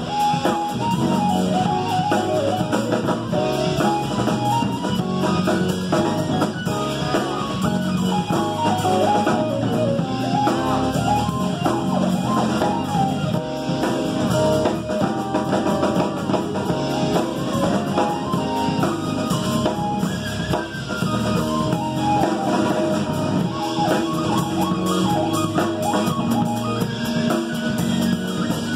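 Small live band playing an instrumental tune, with the electric bass and drum kit to the fore.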